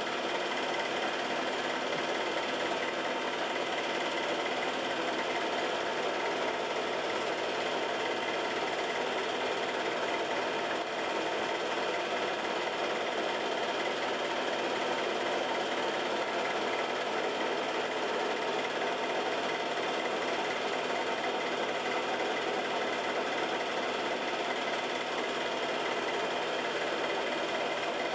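Home-movie film projector running: a steady mechanical whirr and rapid clatter that does not change.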